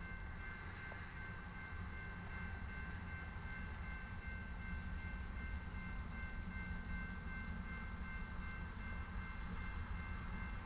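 Railroad grade-crossing warning bell ringing steadily as the crossing gates lower and the lights flash, over a low rumble that grows a little louder about halfway through.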